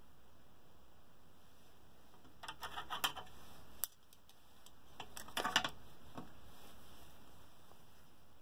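Tableware being handled: two short runs of light clicks and clinks, about two and a half seconds in and again about five seconds in, with a single sharp click just before the four-second mark.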